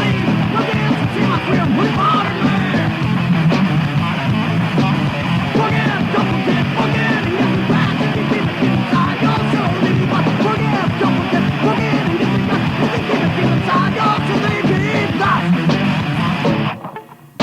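Thrash metal band with a punk edge playing at full tilt: distorted guitar, bass and drums with vocals, on a 1993 cassette recording. The music breaks off briefly near the end, then comes back in.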